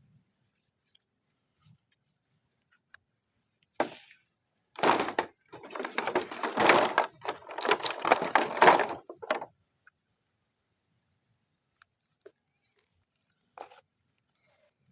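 Toys and their packaging being handled: a sharp knock, then several seconds of dense rustling and clattering, and a short knock near the end.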